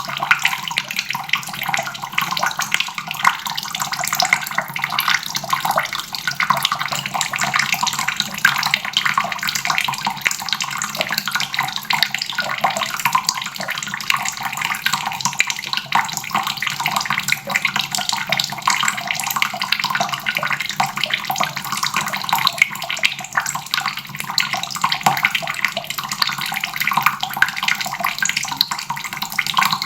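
Water running steadily from a faucet and splashing into a basin, a constant splashing hiss.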